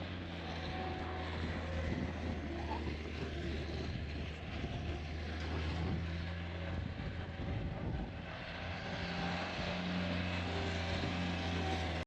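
A vehicle engine running with a steady low drone, under a rushing hiss of wind.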